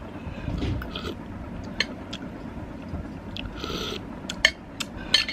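Eating sounds: a spoon clicking sharply against a bowl several times, with softer mouth sounds of eating between the clicks.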